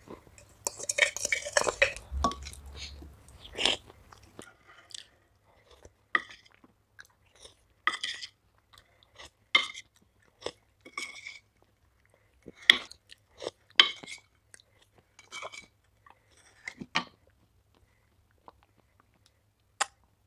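Close-up biting and chewing of something dry and crunchy: a dense run of crunches about a second in, then single crisp crunches every second or so that thin out after about 17 s.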